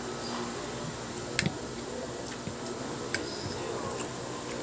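Metal spoon and fork clicking against a plate while eating: a few sharp clicks spaced irregularly, the loudest about a second and a half in.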